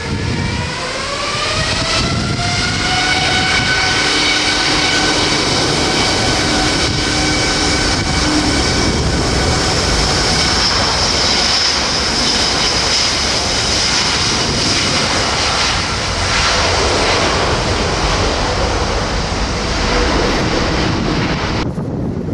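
Jet airliner engines spooling up and running at high power: a whine of several tones rises in pitch for about three seconds, then holds steady over a loud rushing roar. The high whine drops away abruptly just before the end.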